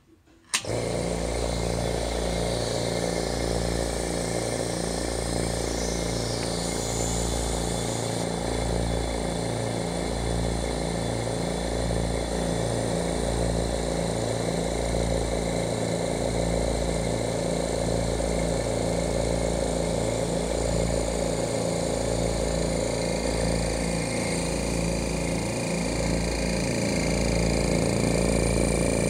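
Oil-less dental air compressor starting about half a second in and running steadily as its piston pumps fill an empty tank, with no intake filters fitted. It grows slightly louder near the end.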